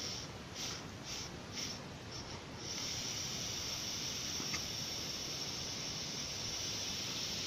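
Vape draw on a Veritas rebuildable dripping atomizer with a single chimney coil. A few short hisses, then from about two and a half seconds in a steady hiss of air and vapour pulled over the firing coil.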